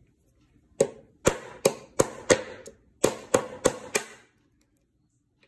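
Sharp knocks of steel pliers striking a Mi Dual Driver earbud's housing against a tabletop to break it open for a teardown. There are nine blows in two quick runs, about three a second.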